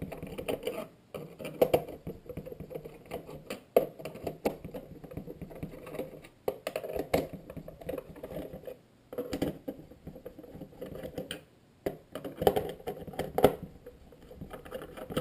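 Small screwdriver backing out the back-panel screws of a DX6 radio transmitter's plastic case: irregular clicking, ticking and scratchy handling sounds, with several sharper clicks along the way.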